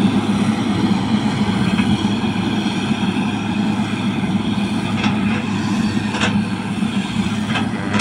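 Motor grader's diesel engine running steadily as the grader drives over the haul road, with a few short clicks in the second half.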